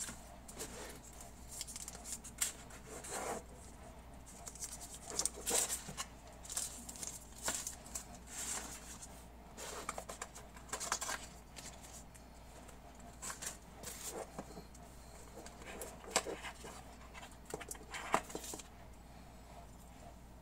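Hands handling a cardboard phone box and its paper inserts: irregular rustles, scrapes and light taps that stop about two seconds before the end, over a faint steady low hum.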